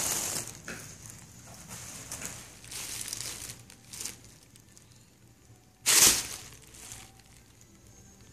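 Thin plastic shopping bag crinkling and rustling as a Ragdoll cat wriggles and paws inside it. The rustling comes in several bursts, and the loudest is just before six seconds in.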